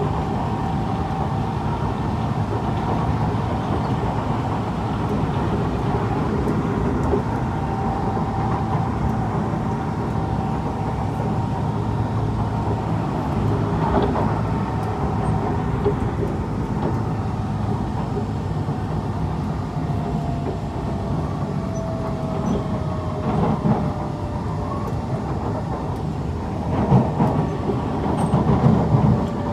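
Kawasaki C151 metro train running at speed, heard from inside the passenger car: steady rumble of wheels on rail with the whine of the traction motors. In the second half one whine tone slowly falls in pitch, and near the end there is a burst of clattering wheel knocks.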